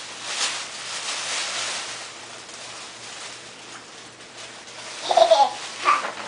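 Tissue paper rustling and crinkling as a toddler pulls it out of a paper gift bag, then a short high squeal from the toddler about five seconds in.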